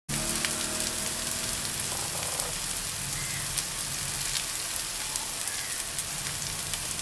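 Fish slices frying in oil in a pan, sizzling steadily with many small crackles and pops.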